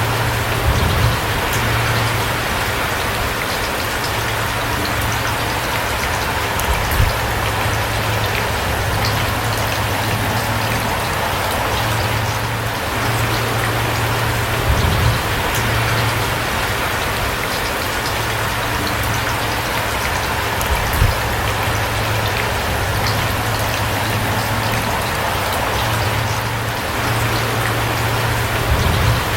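Steady rain, a dense even patter of drops, with a low hum underneath that comes and goes and a few soft low thumps.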